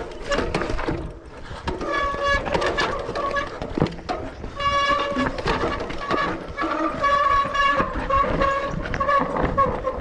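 Bicycle brakes squealing in repeated stretches of a steady high tone as the rider descends a rough trail, over the rattle and knocks of the bike on the ground.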